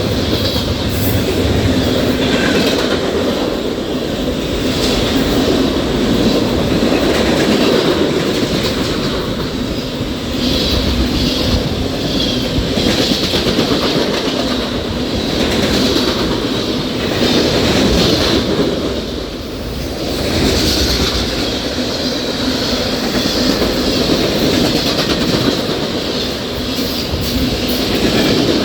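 A fast CN train's cars rolling past, steel wheels running on the rails in a continuous loud rumble that swells and eases a little.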